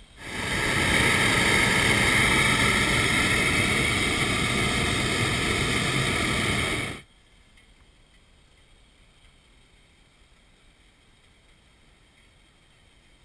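Hot-air balloon's propane burner firing in one long blast of about seven seconds, a loud even roar that starts suddenly and cuts off abruptly.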